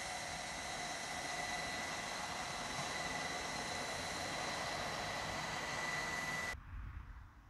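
Steam locomotive standing at a platform, letting off a steady hiss of steam with a thin high whine in it; the sound cuts off suddenly near the end.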